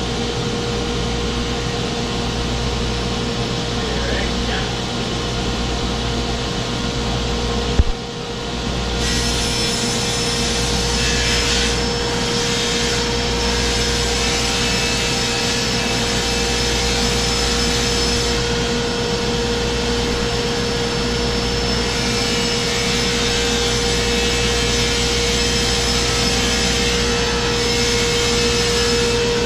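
Table saw running steadily with a constant whine as it cuts a sheet of furniture-grade plywood fed along its sliding table. A single sharp click comes just before eight seconds in.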